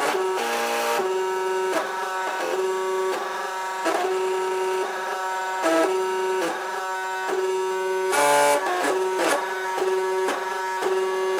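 Wood-framed desktop 3D printer running a print, its stepper motors whining in steady tones that jump to a new pitch every half second or so as the build platform and print head change moves. A short, louder, higher-pitched stretch comes about eight seconds in.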